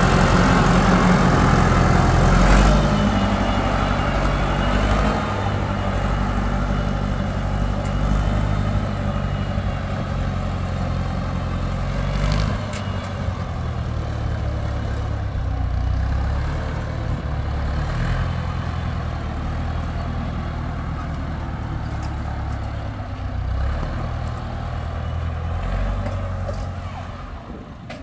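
Four-cylinder diesel engine of an ITM 285 tractor (Iranian-built Massey Ferguson 285) running steadily as it tows a water tank trailer away, growing fainter near the end.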